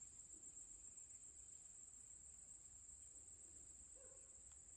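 Near silence, with a faint, steady, high-pitched drone of insects in the grass.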